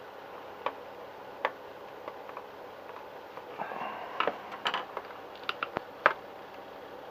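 Scattered small clicks and taps of a servo horn being pulled off its servo and refitted one position further round: two single clicks early, a busy cluster of clicks and handling noise in the middle, and a few sharp clicks later, the loudest about six seconds in.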